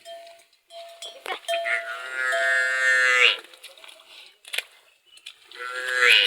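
Livestock calling: one long drawn-out call a couple of seconds in, then a rising call near the end, with a few sharp clinks in between.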